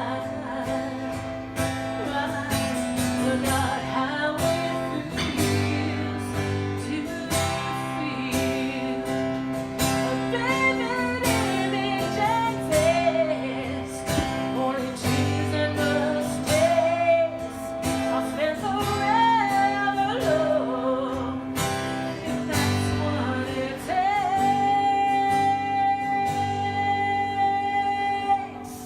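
A song with a woman's lead vocal over guitar accompaniment; near the end she holds one long steady note.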